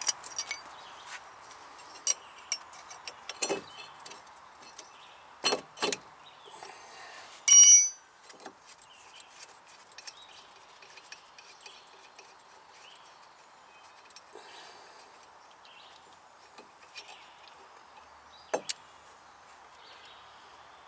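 Metal hand tools clinking and knocking on a brake caliper and its fittings while the brake line's banjo bolt is undone, with scattered sharp clicks and one loud, ringing metallic clink about seven and a half seconds in.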